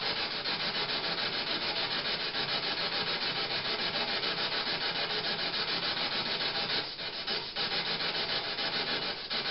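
Steady hiss of static with a quick, even pulse in loudness, briefly dipping twice near the end.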